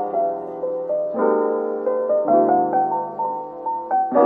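Background music: a piano playing slow, gentle chords under a simple stepping melody, with a new chord about every second.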